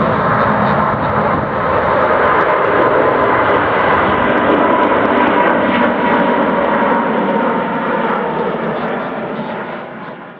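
Airbus A330-900neo's Rolls-Royce Trent 7000 turbofans at climb power as the airliner climbs steeply past overhead just after takeoff: a loud, steady jet noise with a thin whine in it, easing off and then fading out near the end.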